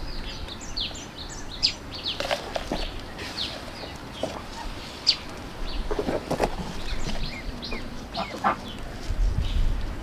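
Chickens clucking, mixed with many short, high chirps scattered throughout.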